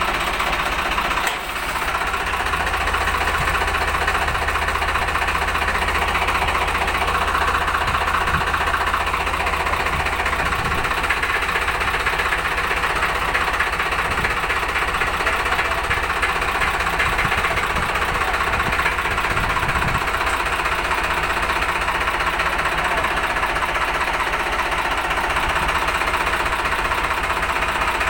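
Farmtrac 60 tractor's diesel engine running steadily, loud and close.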